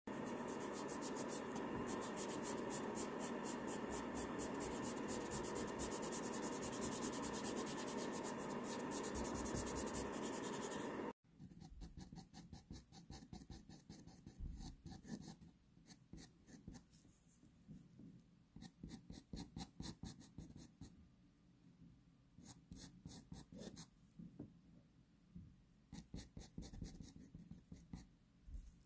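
Pastel scratching rapidly and continuously across textured pastel paper for about the first eleven seconds. After an abrupt cut, a pastel pencil makes quieter short scratchy strokes in bursts as it marks in fine detail.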